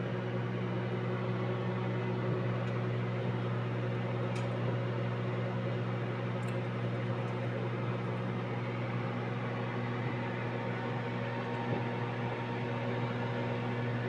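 Kenwood MW450 microwave oven running on high power while heating food: a steady, even hum.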